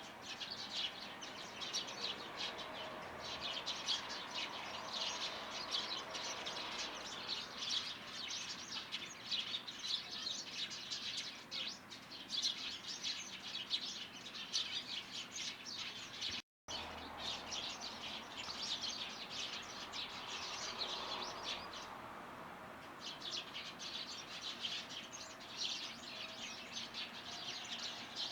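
Small garden birds chirping busily: a dense run of short, high chirps, dropping out for a split second about halfway and easing off briefly a few seconds before the end, then resuming.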